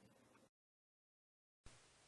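Near silence: faint hiss that drops out completely for about a second in the middle.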